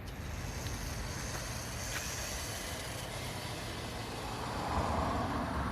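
Toy RC truck driving at normal speed over a rough road: a high motor whine over a steady rush of noise, getting louder near the end.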